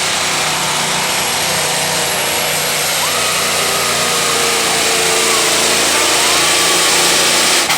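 Super semi pulling truck's diesel engine running at full throttle down the track, a loud, dense, steady sound that builds slightly and stops abruptly near the end.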